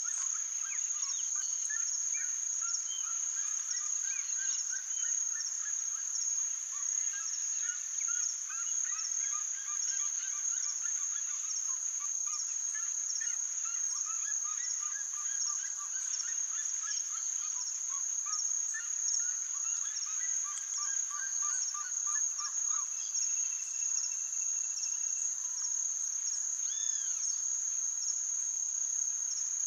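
Steady, high-pitched insect trill, with many birds chirping in short repeated notes over it; near the end comes a brief held whistle and a single curved call.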